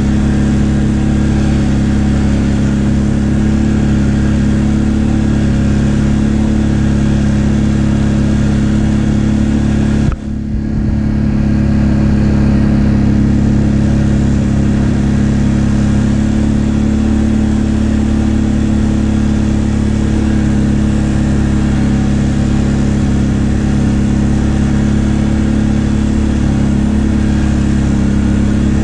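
ATV engine running hard at a steady speed, its pitch held level throughout, with a brief sharp drop about ten seconds in.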